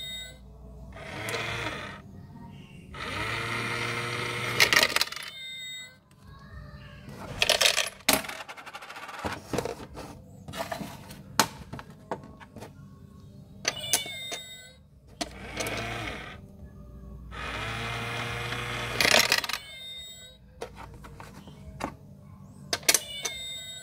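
Battery-powered cat coin bank running twice: a small motor whirs as the lid lifts and the cat's paw sweeps the coin off the plate, with the toy's electronic cat sounds, then clicks and the coin clattering down inside the box.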